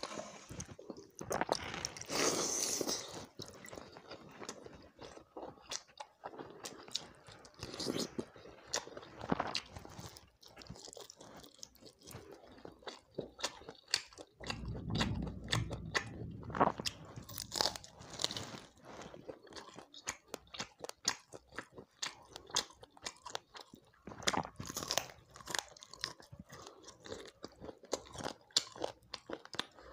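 A person chewing and biting close to the microphone while eating fried chicken leg pieces and water rice (pakhala bhata) by hand, with many sharp, irregular mouth clicks. A brief low rumble comes about halfway through.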